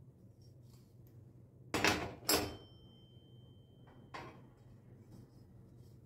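Metal gas-hob pan support set down onto the hob: two loud clanks close together about two seconds in, a short metallic ring after them, and a lighter knock about four seconds in.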